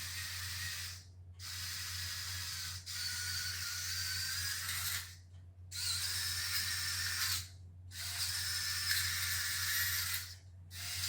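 Small electric gear motors of a line-following toy car running with a whirring whine, stopping briefly four times and starting again. The two drive motors are a mismatched pair: the replacement runs at a different speed from the original.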